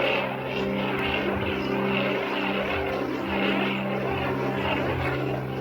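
Music track from a lightsaber's sound font, played through the saber hilt's small speaker, made up of held, droning notes.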